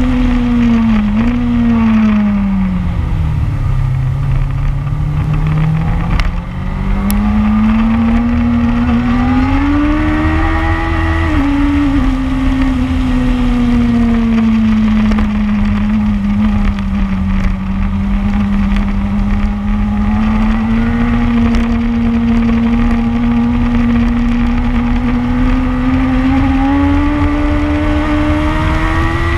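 Onboard motorcycle engine at track speed: the engine note falls over the first few seconds as the bike slows, climbs again under acceleration, holds fairly steady, and rises once more near the end. Constant low wind buffeting on the camera microphone underneath.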